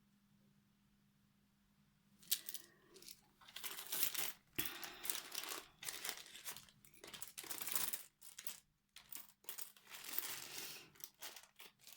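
Plastic craft-supply packaging being handled and opened, crinkling in irregular bursts from about two seconds in.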